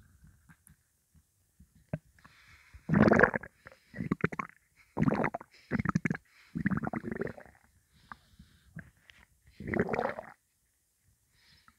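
Hungry human stomach rumbling and gurgling in a run of short, irregular growls that start about three seconds in, the first the loudest. The stomach is empty of food, with only water in it.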